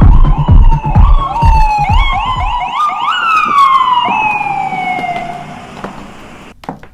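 Ambulance siren, in quick rising-and-falling sweeps that slow into one long falling wail and fade away. Electronic music with a heavy beat runs under it for the first couple of seconds.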